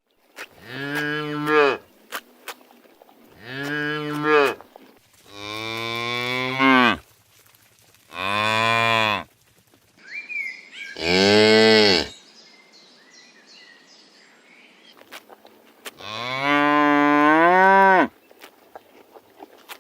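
Cattle mooing: six long, low calls in a row, each lasting one to two seconds, with short pauses between them.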